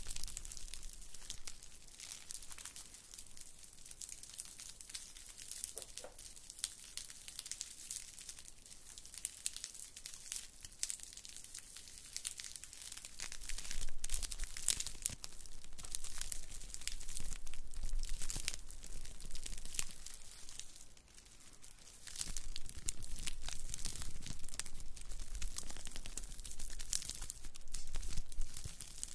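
Fingertips and nails scratching and rubbing a woven straw coaster close to the microphone, making a dense, dry crackling rustle. It is quieter for the first part, louder from about halfway, with a brief lull about three-quarters through.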